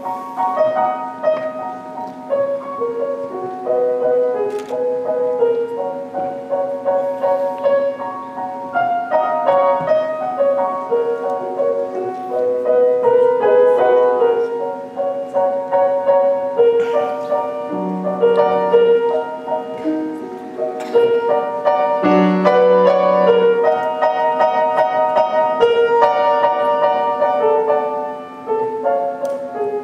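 Grand piano played solo, a classical piece with quick, continuous runs of notes in the middle and upper register and a few lower notes near the middle. A faint steady hum lies underneath.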